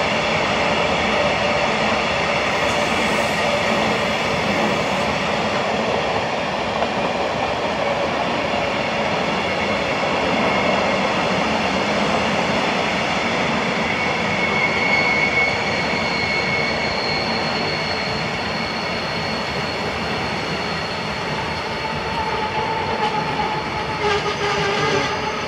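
A freight train of empty container flat wagons rolling past, with a steady rattle and clatter of wheels on rail. A high squeal from the running gear rises out of it about halfway through and lasts several seconds.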